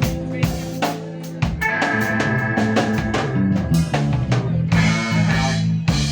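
Band music driven by a drum kit, with bass drum and snare hits over steady bass notes.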